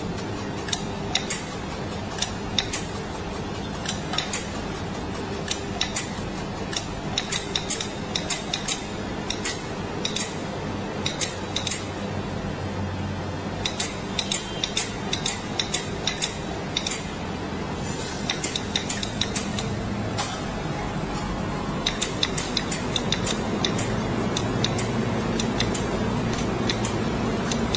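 Pulsed laser mould welding machine firing: runs of sharp clicks, several a second, broken by short pauses, over a steady machine hum.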